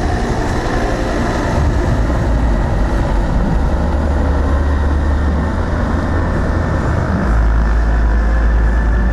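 Helicopters flying past in formation: a steady, loud, low rumble that deepens about seven seconds in.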